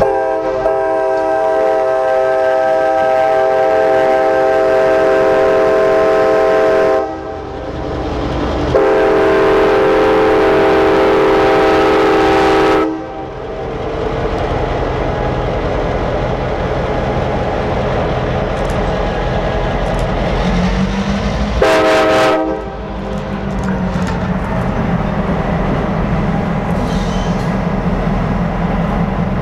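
Air horns of a Reading & Northern EMD F-unit locomotive set sounding three blasts: a long one of about seven seconds, a second long one of about four seconds, and a short one a little after twenty seconds in. The units' diesel engines run underneath, their note rising slightly around the short blast.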